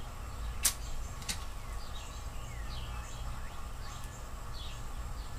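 A match struck once to light a tobacco pipe, a sharp scrape less than a second in. Small birds chirp repeatedly over a low steady rumble.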